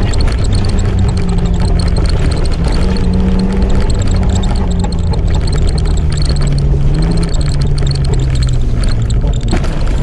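Off-road 4x4's engine running under load, heard from inside the cabin while driving fast on a rough dirt track, its pitch wavering up and down with the throttle over a continuous rumble. Frequent small knocks from the rough ground run through it.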